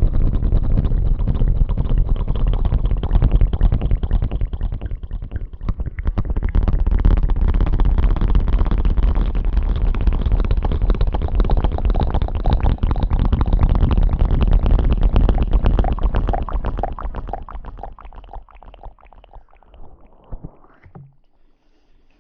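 ASMR rustling and scrubbing rubbed right against the microphone: a dense, crackly rustle with a heavy low rumble. It eases off about 17 seconds in and fades out over the next few seconds.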